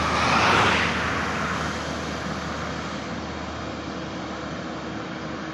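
A bus passing close by: steady engine and tyre noise, loudest about half a second in, then slowly fading as it moves away.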